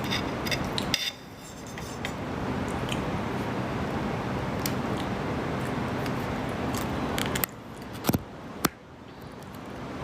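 Stir-frying in a wok: a steady hiss with scattered clinks of a metal utensil. The hiss cuts off sharply about seven and a half seconds in, followed by a few separate clicks.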